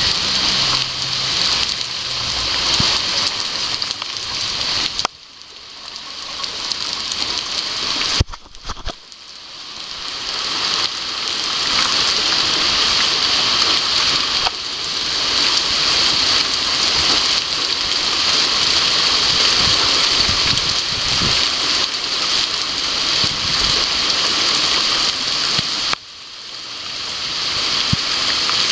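Heavy rain pouring down in a dense, steady hiss on concrete paving and a tiled roof. The sound drops off sharply three times and swells back up.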